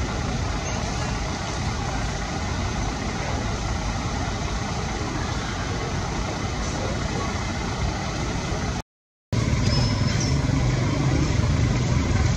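Steady rushing outdoor background noise with a low rumble. It drops out for about half a second just under nine seconds in, then comes back a little louder and deeper.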